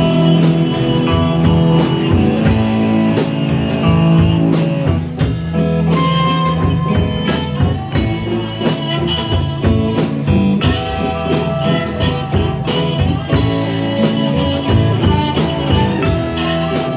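Rock band playing an instrumental passage: guitar over a drum kit keeping a steady beat, with no singing.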